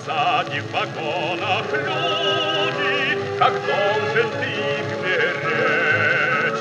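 Instrumental interlude of a 1960 Soviet variety-orchestra song played from a 78 rpm shellac record: sustained melody lines with a strong vibrato over a fuller accompaniment, with the disc's surface hiss underneath.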